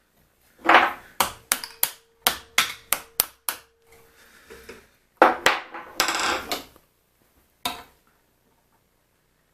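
A hammer tapping a steel pin into a drilled-out hole in a vise. About ten quick metal strikes come in a couple of seconds, with a ringing tone under them, followed by a few louder clattering knocks.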